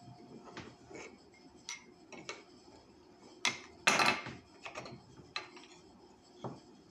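Small wooden puzzle pieces clicking and knocking against each other and the wooden tabletop as they are handled and fitted together, with a louder clatter about halfway through.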